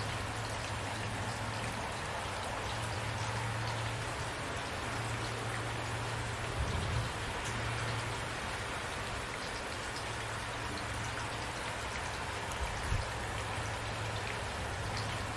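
Steady rain falling and pattering on a surface, an even hiss of drops. A low hum comes and goes beneath it, and two brief low thumps sound about halfway through and near the end.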